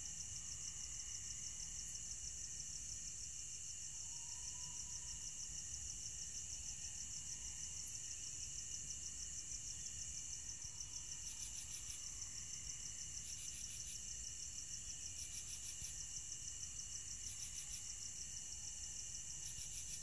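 Night insect chorus of crickets trilling steadily. About halfway through, a higher chirp joins in, repeating in short bursts roughly every two seconds.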